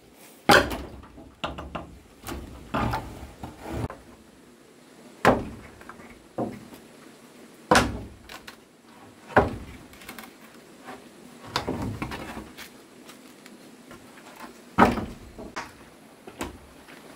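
Irregular wooden knocks and thuds, about a dozen spread unevenly, some followed by brief scraping or rubbing, as of timber being handled and struck during building work.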